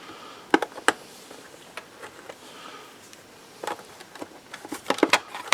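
Scattered sharp clicks and taps of hand tools and plastic parts being handled while a robot vacuum is unscrewed and taken apart: two near the start, then a quick cluster near the end.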